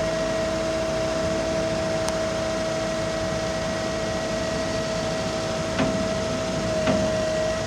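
Cat 259D tracked skid steer's diesel engine running steadily, with a steady whine over the engine noise. Near the end come two short knocks about a second apart.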